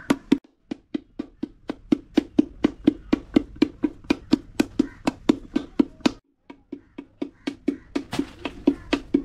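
Wooden paddle beating the wall of an unfired clay pot held across the lap, paddle-and-anvil shaping by hand: an even run of thuds, about three to four a second, with two short breaks.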